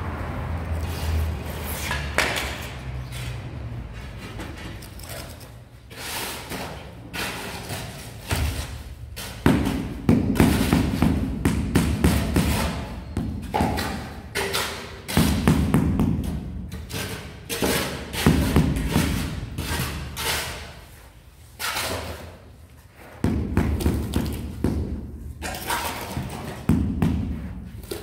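Rubber mallet tapping a large glazed floor tile down onto its mortar bed, bedding and levelling it: runs of rapid dull thuds broken by short pauses.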